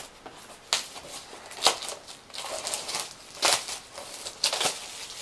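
Plastic shrink wrap on a sealed trading-card box being handled, giving a few separate sharp crinkles and crackles about a second apart.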